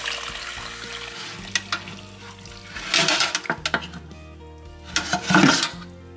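Background music over the clatter of pho broth being ladled and strained in a metal stockpot: liquid splashing and metal scraping, loudest in two bursts, about three seconds in and near the end.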